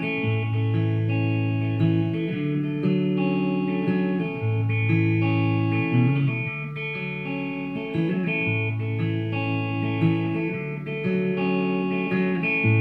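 Electric guitar playing a slow instrumental intro: picked chords that ring on, with the chord changing about every one to two seconds.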